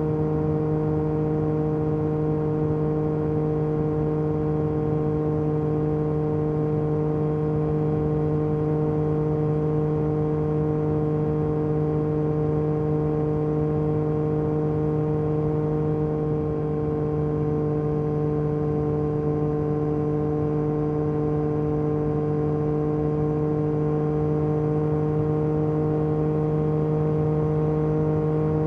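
Yamaha MT-09 SP's inline three-cylinder engine running through an Akrapovic Carbon Racing exhaust, cruising at a steady speed. The engine note holds an almost constant pitch throughout.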